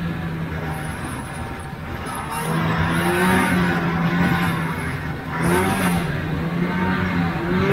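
Vintage two-stroke snowmobile engine running at speed with a steady drone. It gets louder a couple of seconds in, and its pitch dips and comes back up with the throttle about two-thirds of the way through.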